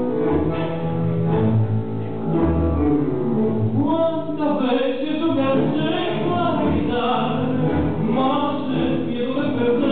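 Tango music: an instrumental passage with a steady bass line, then a singer's voice comes in about four seconds in and carries on over the accompaniment.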